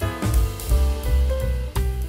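Instrumental background music with a drum kit and bass keeping a steady beat under held melodic notes.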